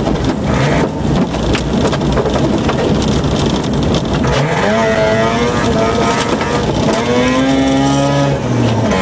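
Mazda RX2 rally car's rotary engine under load, heard from inside the car on a gravel stage: gravel and tyre rumble with stones rattling against the car, then about four seconds in the engine note rises in pitch as it accelerates, climbs again and drops sharply near the end at a gear change.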